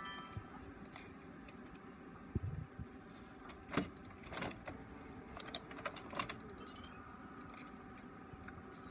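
HP Officejet inkjet printer printing a page: a steady mechanical whir with many small clicks, and two louder knocks about two and a half and four seconds in.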